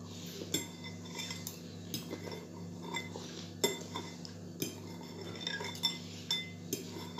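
A metal fork clinking and scraping against a bowl in irregular taps as food is picked from it, the sharpest tap about halfway through.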